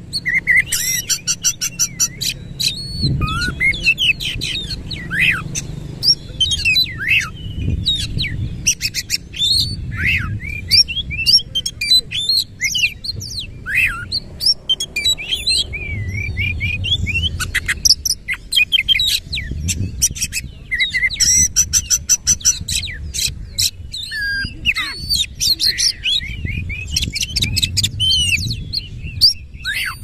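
Oriental magpie-robin singing almost without pause: a loud, varied song of gliding whistles, rapid rattling trills and sharp chip notes.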